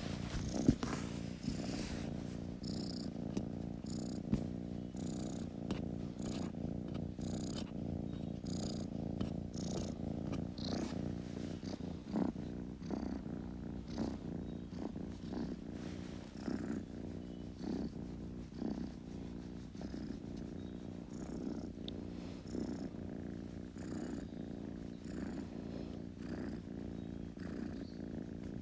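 A kitten purring steadily and close up, a continuous low rumble with scattered faint clicks; one sharper click comes about a second in.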